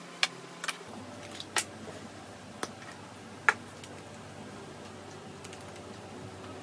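A handful of sharp clicks and taps from small cosmetic containers and caps being handled, the loudest about three and a half seconds in, over a steady low room hum.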